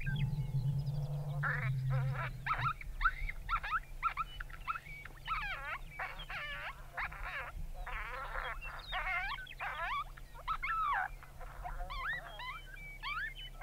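Coyotes yipping and howling, several high, wavering voices overlapping in rising and falling glides with short breaks between calls.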